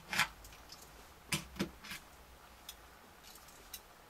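Small plastic and metal parts of a toy robot kit clicking and tapping as they are handled and fitted together: a sharp click just after the start, a pair of clicks about a second and a half in, then a few fainter ticks.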